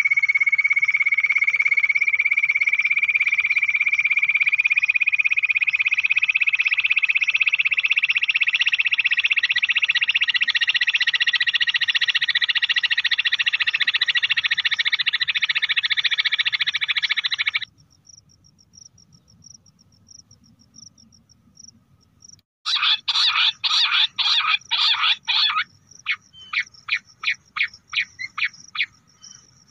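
Bush quail call recording played as a lure: a long, fast trill that slowly rises in pitch and stops abruptly. After a pause of about five seconds comes a short burst of rapid notes, then separate notes at about three a second.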